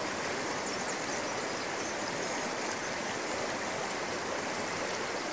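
Shallow river running over rocks in riffles: a steady rushing of water.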